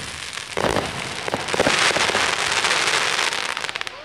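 Aerial fireworks crackling: a burst about half a second in, then a dense, rapid crackle of crackling stars that swells to its loudest around two seconds in and dies away near the end.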